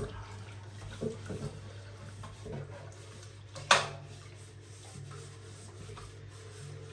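Soft rubbing of a hand gently wiping a nonstick air fryer drawer in soapy water in a stainless-steel sink, with one sharp knock a little past halfway as the drawer is handled. A low steady hum runs underneath.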